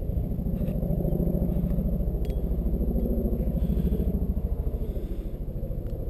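Chinook twin-rotor helicopter flying overhead: a steady, fast, even thrumming of rotor beats.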